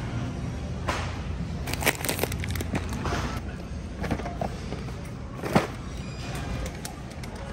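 Scattered knocks and crinkling over a steady low background hum, about five sharp knocks in all.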